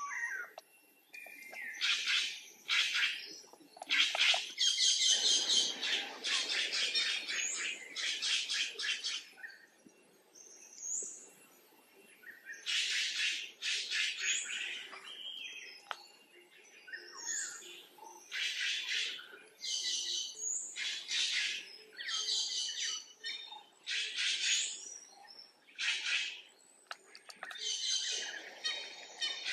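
Young macaques squealing and screeching, high-pitched calls that come in bouts of rapid repeated notes with short pauses between them.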